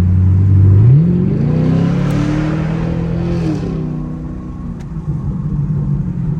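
Chevrolet Camaro SS V8 under a hard pull: from about a second in the revs climb steadily, hold briefly, then fall away as the throttle is lifted, settling to a lower steady drone.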